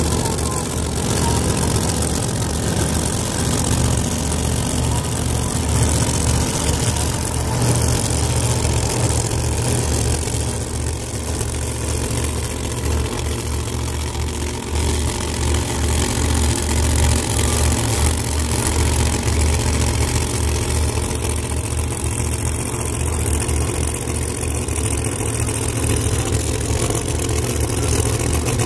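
Pro Mod drag cars' big V8 engines idling steadily in the staging lanes.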